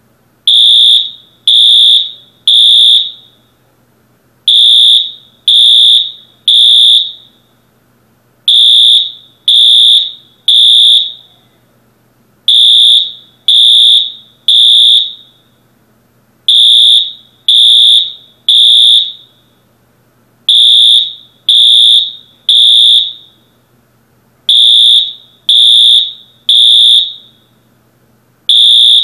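Building fire alarm sounding the temporal-three evacuation signal: loud, high-pitched electronic beeps in groups of three, each group followed by a short pause, repeating about every four seconds.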